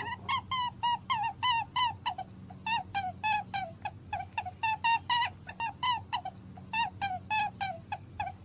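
A small animal's rapid series of short squeaking calls, two to three a second, each dipping slightly in pitch, over a low steady hum.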